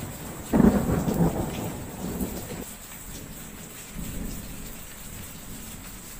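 A thunderclap about half a second in that rumbles away over the next two seconds, then a fainter rumble of thunder about four seconds in, over steady rain.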